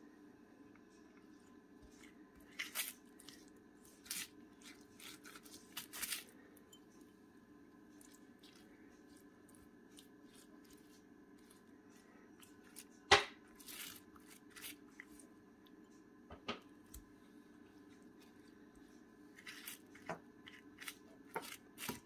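Silicone pastry brush dabbing and spreading chili oil over food in a glass baking dish: scattered soft wet strokes and light taps, with one sharp tap about thirteen seconds in, over a faint steady low hum.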